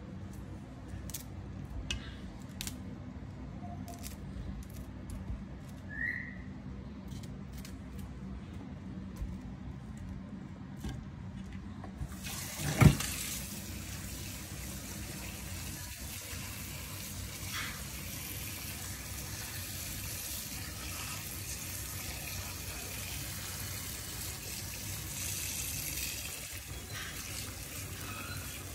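Scattered small clicks and knocks as cauliflower florets are cut and handled, then a sharp knock about halfway through as the kitchen tap starts. After that, a steady stream of tap water runs into a plastic bowl of cauliflower and carrots in the sink, filling it.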